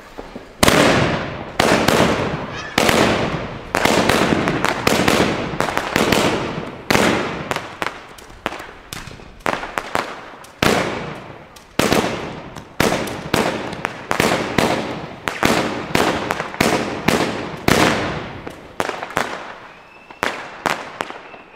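Blackboxx Lava Rain, a 28-shot fan-shaped firework cake sold as a quiet battery, firing shot after shot at about one to two a second for some twenty seconds. Each shot starts sharply and fades within a fraction of a second.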